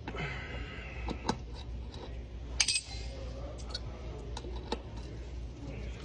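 Hand tool clinking and tapping on the metal hub cap of an M1A2 Abrams road wheel: scattered sharp clicks, the loudest about two and a half seconds in, over a steady low hum.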